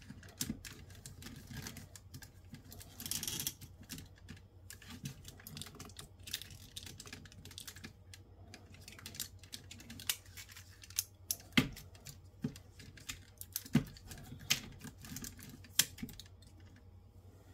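Faint, irregular clicks and taps of a posable robot action figure being handled and stood up on a surface, with a few sharper knocks in the second half and a brief rustle about three seconds in.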